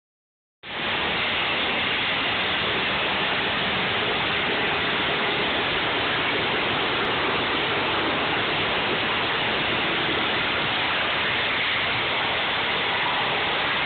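Steady, even hiss that starts suddenly about half a second in and holds at one level, with no motor tone or cutting strokes in it.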